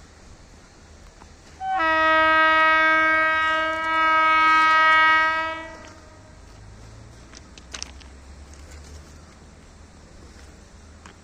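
Air horn of a GM/EMD G26CW-2 diesel locomotive (TCDD DE 22042) sounding one long blast of about four seconds, a chord of several notes, starting about two seconds in and sounded as a warning for a level crossing. A sharp click about eight seconds in.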